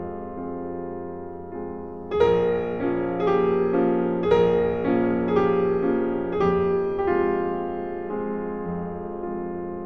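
Slow solo piano music. Soft held notes swell into a louder passage about two seconds in, with new notes struck about every half second, then fade away toward the end.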